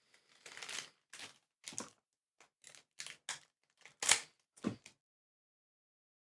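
Trading card booster pack being handled and opened: a string of about nine short crinkling, rustling sounds over five seconds, the loudest about four seconds in.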